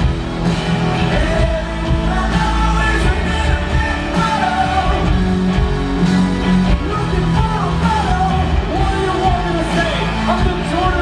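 Live rock band playing: a male lead singer over drums, electric guitar and bass guitar, recorded from the audience.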